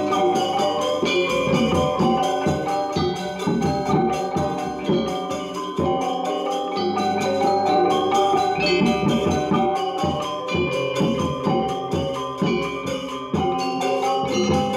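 Balinese gamelan ensemble playing: bronze metallophones and gongs struck in fast, dense patterns, with the ringing notes overlapping.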